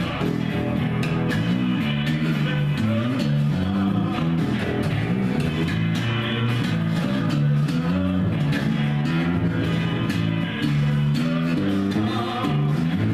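A rock song playing, with guitar, a bass line, drums and singing.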